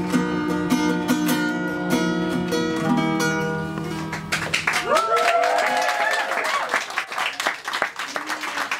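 Acoustic guitar playing its last chords, which ring out; at about four to five seconds in, clapping breaks out with cheering voices and carries on.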